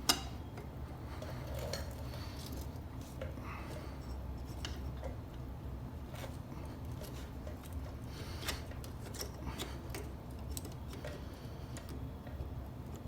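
Light, scattered metallic clicks and taps of brake pads and alignment pins being handled in a motorcycle rear brake caliper, over a steady low hum.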